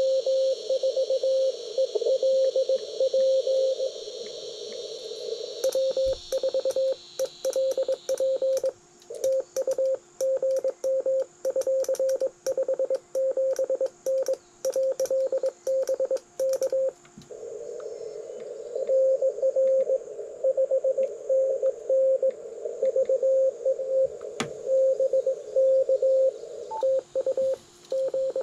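Morse code (CW) from a ham radio transceiver on the 40 m band: a single mid-pitched tone keyed on and off in dots and dashes over receiver hiss. From about six to seventeen seconds in, the light clicking of a paddle key goes along with the tones as the operator sends. In the last part the tones go on without key clicks while his hands rest, so that is another station answering.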